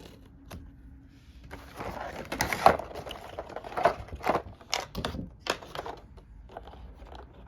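Plastic packaging crinkling and rustling, with sharp clicks and taps of hard plastic board-game miniatures being handled and set down.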